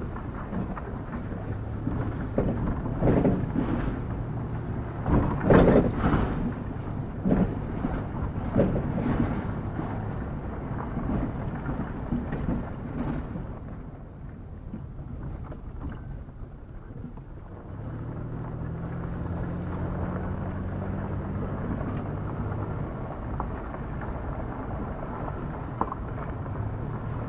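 Vehicle engine running with a steady low hum, heard from inside the cabin. Between about 2 and 13 seconds in come a series of loud knocks and rattles, loudest about five to six seconds in. The sound drops quieter for a few seconds, then the engine hum comes back steady.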